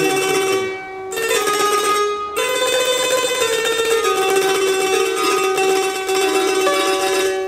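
Electrified simsimiyya lyre picked with a plectrum, playing a quick Arabic-scale melody over a low note that rings throughout, with a short break about a second in.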